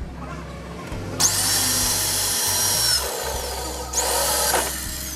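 Electric drill boring holes through a metal tractor dashboard panel, in two runs: a long one starting about a second in and a short one near four seconds. Each run ends with the motor's whine falling as it spins down.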